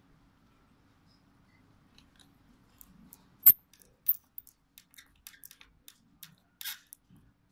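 Small clicks and ticks of a precision screwdriver and the plastic frame of a DPVR E3 VR headset being worked on: one sharp click about three and a half seconds in, a second soon after, then a scatter of lighter ticks.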